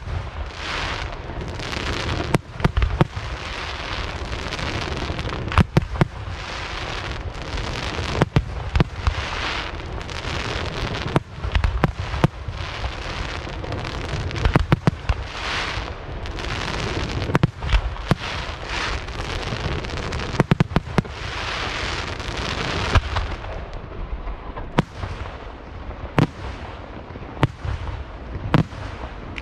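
Aerial fireworks by Lieto Carmine e Figli, shells bursting in quick succession. Sharp bangs, sometimes in clusters, go off every second or so over a continuous crackle from the glittering stars. The crackle thins out near the end.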